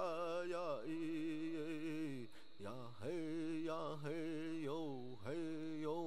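A man's solo voice singing a chant-like song in long held notes with a slight waver, in phrases of about two seconds.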